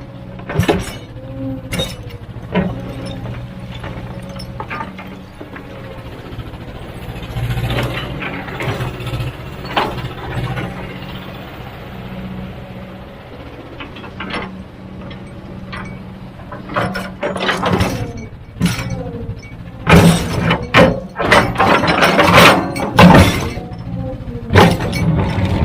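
Heavy diesel machinery running steadily, with sharp clanks and crashes of rock or metal, loudest and most frequent in the last few seconds.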